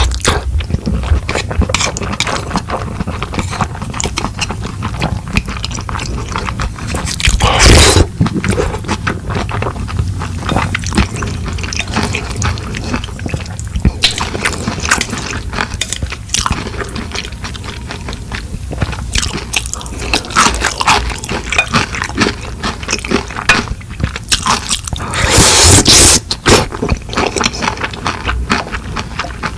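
Close-miked eating of mixed noodles and dumplings: wet chewing and mouth sounds with small clicks, and two louder bursts, about eight seconds in and near the end.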